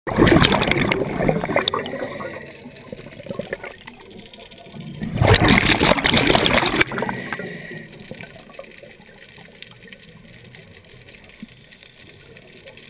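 Scuba diver's exhaled breath bubbling out of the regulator underwater in two long loud bursts, one at the start and one about five seconds in, with a quieter hiss between and after.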